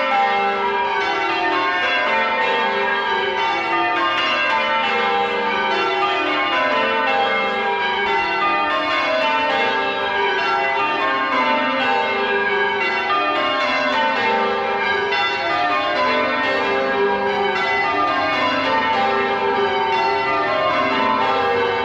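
Church tower bells rung in changes (change ringing): a loud, continuous peal of many bells struck one after another in repeating runs that step down in pitch.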